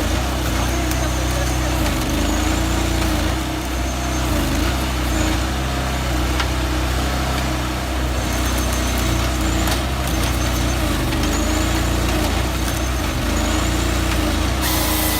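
Engine of a small forestry harvester running steadily, its pitch wavering slightly as the load changes, with a brief hiss near the end.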